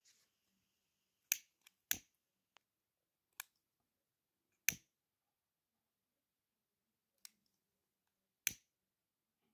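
A hand-held lighter clicked again and again to light tea-light candles: about seven sharp clicks at uneven intervals, with silence between them.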